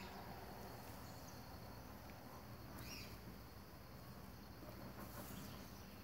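Faint outdoor ambience: a steady high-pitched insect trill, with one short rising bird chirp about three seconds in.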